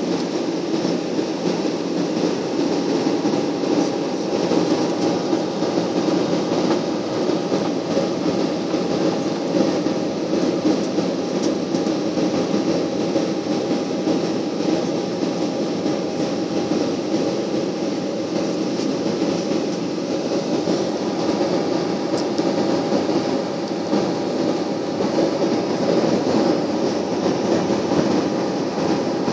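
Jet airliner cabin noise heard from inside, at a window seat over the wing during the descent to land: the engines running and air rushing past the fuselage in a steady, unbroken rumble with a faint steady hum.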